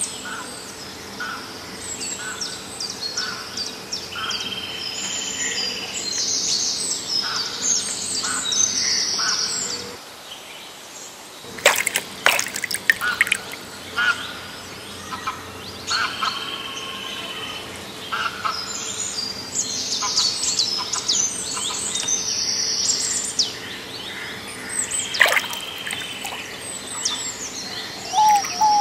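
Several wild birds chirping and calling over one another, short high notes and trills repeating throughout. A few sharp clicks about twelve seconds in, and one more later.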